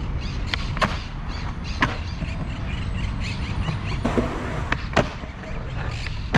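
Skateboard wheels rolling on concrete with a steady low rumble, broken by several sharp clacks of the board's tail and wheels striking the ground, the loudest near the end as the board lands from a trick.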